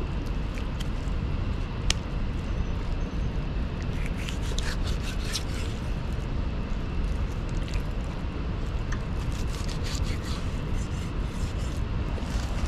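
Knife cutting a beef heart into pieces on a wooden chopping block: scattered light knocks and scrapes over a steady low rumble.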